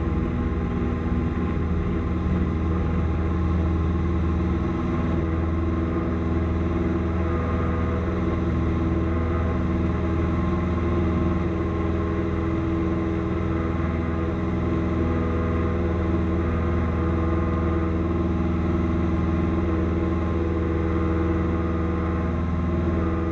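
Single-engine piston airplane's engine and propeller running steadily at takeoff power, heard from inside the cabin through the takeoff run and climb-out.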